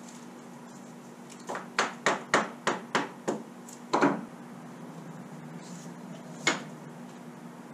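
A mallet tapping on glued-up wooden pieces to seat them: seven quick taps, then a louder double knock, and a single knock a couple of seconds later.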